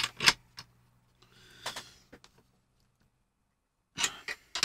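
Small metal hardware being handled: a spanner, nuts and washers clicking and clinking against the steel threaded rod of a 3D-printer frame. There are a couple of sharp clicks at the start, a short rustle, and a quick run of clicks near the end.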